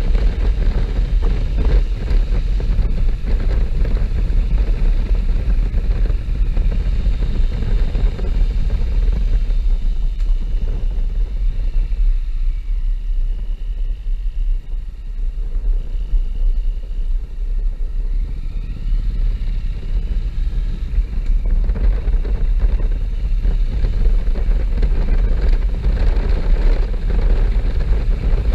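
Riding sound of a 2014 Honda NC750S motorcycle on the move: heavy wind rumble on the camera microphone over the parallel-twin engine. The noise eases from about twelve seconds in while the bike slows through a hairpin, then builds again as it pulls away.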